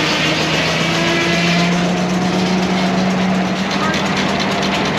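New Huber steam traction engine running under belt load driving a sawmill: a steady low hum, and from about two seconds in a fast, even beat.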